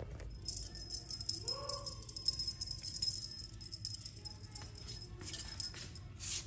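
A cat toy jingling and rattling as it is swung and shaken, an uneven run of bright jingles that starts about half a second in.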